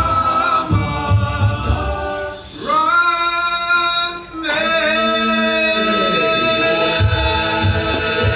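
Men's a cappella group singing in close harmony over a low thumping beat. A little over two seconds in, the beat drops out under long held chords, and it comes back near the end.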